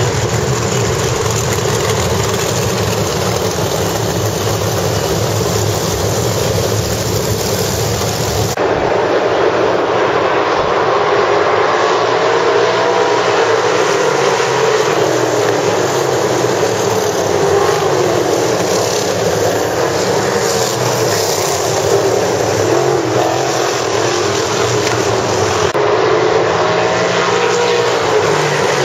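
A pack of winged 305 sprint cars racing on a dirt oval, their small-block V8 engines running hard in a continuous loud drone. The engine pitch rises and falls as cars come past.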